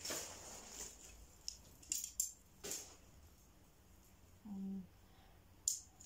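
Rustling of a kids' play tent's fabric being handled, with a few sharp clicks and taps from its thin poles.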